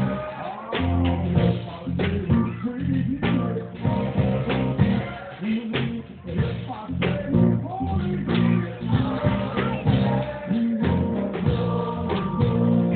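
Live church worship music: a band playing with singing, guitar, a strong bass line and a steady drum beat.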